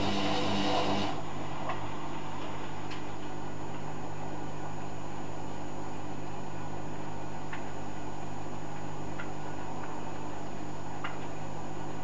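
Hoover Dynamic Next front-loading washing machine on a delicates cycle: the drum motor runs with a steady whirr that stops about a second in. The drum then rests with a low hum and a few faint ticks, the pause between gentle drum turns of a delicates wash.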